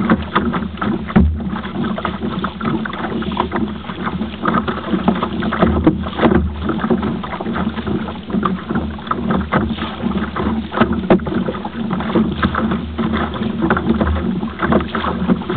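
Wind and sea noise on a small kayak on open water, with irregular small knocks and splashes against the hull.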